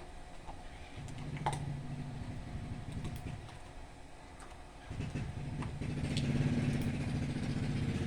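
An engine running with a steady low hum that fades about four seconds in and comes back louder about a second later, with a few sharp clicks over it.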